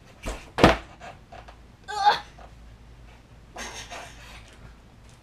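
A skateboard knocks twice on a carpeted floor, the second knock loud, as the board is popped and lands. About two seconds later comes a short wavering vocal sound, then some heavy breathing.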